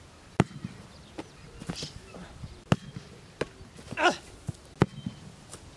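Sharp thuds of a soccer ball being kicked and stopped, four in a few seconds, with two short vocal cries in between.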